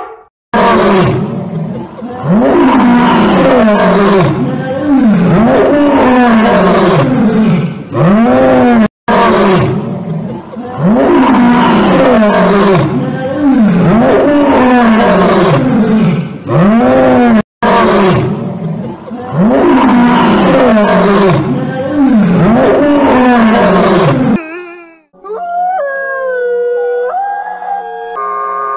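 Male lion roaring: a bout of deep, rising-then-falling roars about every second and a half, played three times over with brief cut-offs between. About 25 seconds in, the roaring stops and a wolf howls, with long held notes that step in pitch.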